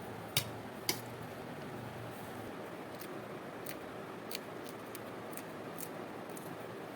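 A few sharp clicks over a steady low hiss. Two louder ones come in the first second, and fainter ones are scattered through the rest.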